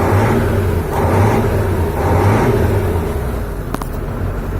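KamAZ truck's diesel engine running just after a cold start, swelling and easing about once a second, then running more evenly. A single sharp click comes near the end.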